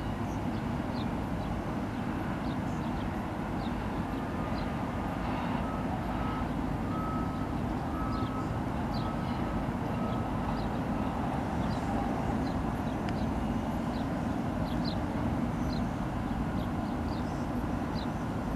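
Steady low engine rumble from a container ship and the tugs working alongside it. Faint repeated beeps, like a reversing alarm, come in between about five and eleven seconds in.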